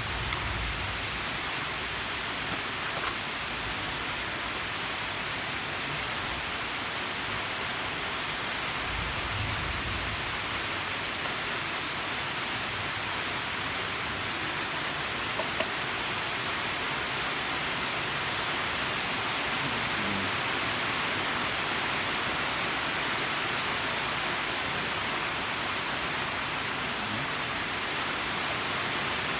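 Steady hiss of background noise, with a couple of faint clicks.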